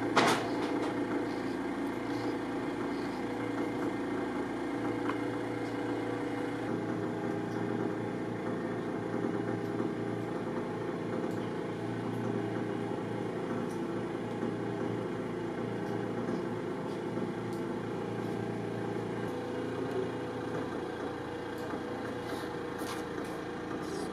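Steady machine hum made of several held low tones, its pitch pattern shifting about seven seconds in and again near the end. A sharp click comes right at the start.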